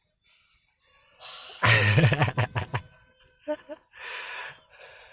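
A man's wordless vocal outburst, loud and pulsing for about a second, followed by several short, breathy exhalations.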